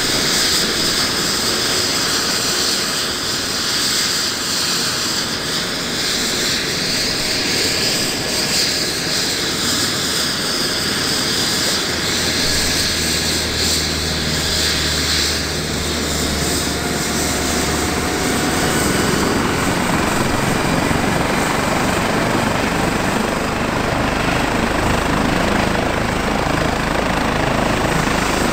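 Airbus H135 twin-turbine helicopter running on the ground with its main rotor turning: a steady turbine whine over rotor noise. The high whine fades out about halfway through while the low rotor sound grows a little stronger.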